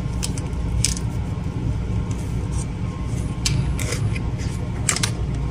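Paper rustling and a few short scrapes and clicks as a roll of ECG paper is adjusted and seated in a Philips HeartStart MRX defibrillator's printer compartment, over a steady low hum.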